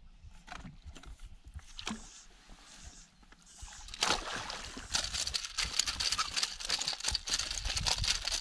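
A hooked pike splashing at the water's surface as it is scooped into a landing net: a dense run of rapid splashes starting about four seconds in.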